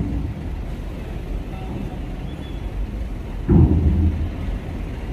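Steady low rumble of heavy truck engines on a steel ferry loading ramp, with one heavy clunk about three and a half seconds in.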